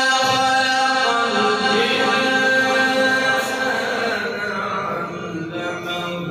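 A man's voice reciting the Quran in the melodic, drawn-out tajweed style, holding long notes that glide between pitches partway through.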